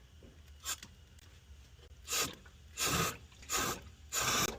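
Working the furnace's clogged condensate drain line, making a series of short rasping, rushing bursts: a faint one, then four stronger ones about two seconds in, roughly every 0.7 s. The drain is still full of water and not draining.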